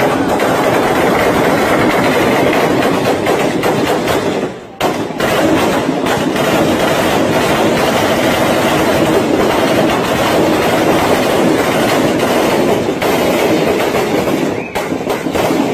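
Heavy automatic gunfire, shots packed so closely they run together into one continuous clatter, with a short break about five seconds in.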